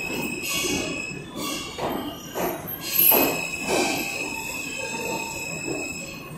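New York City subway train moving past along an underground platform: a steady high-pitched wheel squeal over a regular clatter of wheels on the rails, the squeal fading out near the end.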